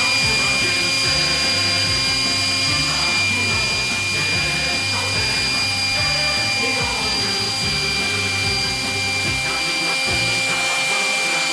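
Household vacuum cleaner running steadily, a motor hiss with a constant high whine, over background music.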